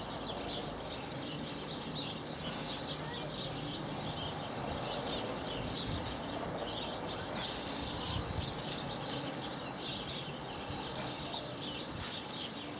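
Birds chirping continuously over a steady low rustling noise.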